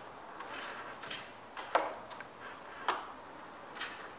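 A 6-inch steel drywall knife clicking and scraping against a metal mud pan of joint compound during skip-trowel texturing: sharp ticks about once a second, the loudest a little under two seconds in, with soft scraping between.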